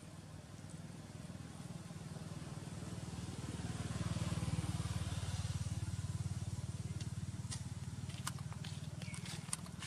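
A passing motor vehicle, likely a motorbike, its engine hum swelling to a peak about halfway and then fading, with a few short sharp clicks near the end.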